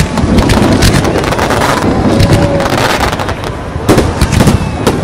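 Fireworks bursting: a rapid, overlapping run of sharp bangs and crackles over a low rumble, in clusters about a second in and again about four seconds in.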